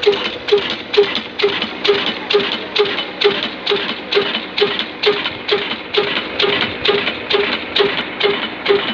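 Kala 22 HP slow-speed diesel engine running on furnace oil at an even pace: one sharp beat about twice a second, each with a short ringing knock.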